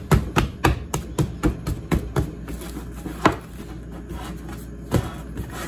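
Hand punching down risen bread dough on a metal baking sheet: a quick run of soft thumps, about four a second, then two more spaced-out knocks. Punching down knocks the big yeast air bubbles out of the dough between rises.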